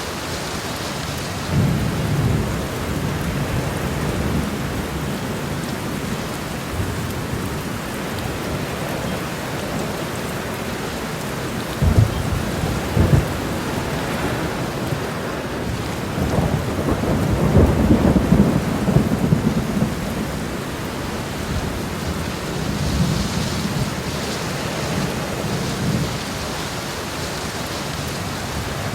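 Heavy rain pouring steadily onto a road, a dense, even hiss. Two brief low thumps come a second apart near the middle, and a few seconds later a low rumble swells and fades.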